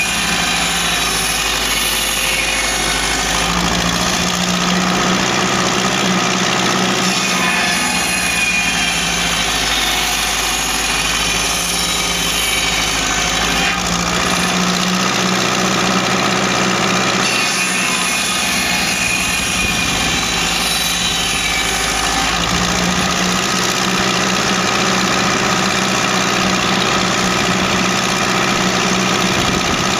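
Ferguson TED20 tractor's four-cylinder engine running steadily as it drives a circular saw bench. The saw blade cuts through logs several times, each cut adding a rasping, higher sound over the engine that comes and goes.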